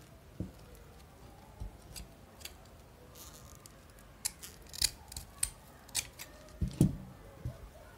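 Scissors snipping through stiff crinoline, a quick run of sharp snips in the second half, with a few low knocks from handling, the loudest near the end.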